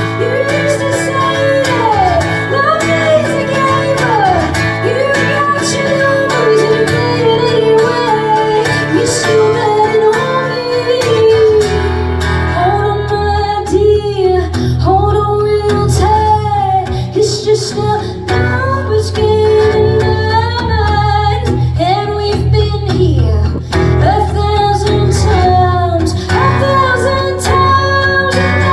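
A woman singing a folk-rock song live with guitar accompaniment. The low end of the band grows fuller about eleven seconds in.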